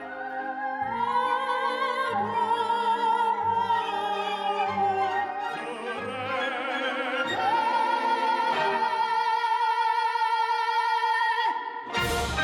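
Operatic singing over classical accompaniment: a voice with wide vibrato over a pulsing low line, ending on a long held high note that stops about three quarters of the way through. A loud hit comes near the end and rings out.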